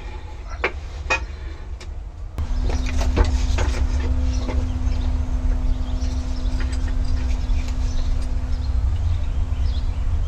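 Scattered metal clinks and knocks from tools and parts being handled, with a steady low hum that comes in about two seconds in.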